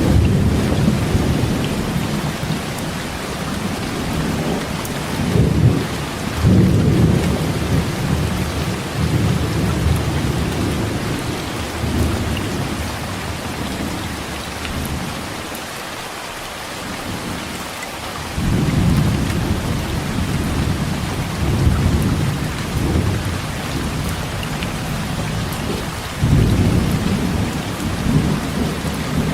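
Heavy rain pouring steadily, with low thunder rumbling again and again, swelling and fading every few seconds, with a short lull in the rumbling about halfway through.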